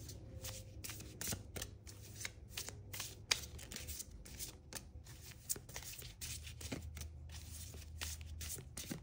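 A deck of tarot cards being shuffled by hand: a steady run of quick, irregular card snaps and riffles.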